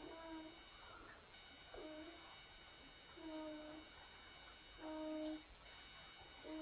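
Steady high insect trilling, like crickets, with a short low hooting call repeating about every second and a half, five times.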